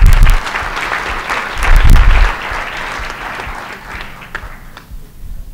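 Audience applauding, starting at full strength and fading out over about five seconds. Two heavy low thumps, one at the very start and one about two seconds in, are the loudest sounds.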